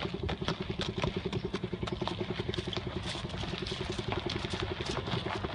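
A small engine running steadily, with scattered clicks and rattles over it.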